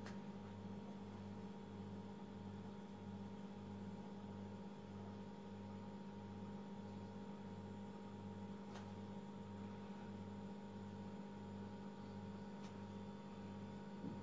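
Low steady electrical hum with a deeper drone that pulses about one and a half times a second, and a few faint ticks.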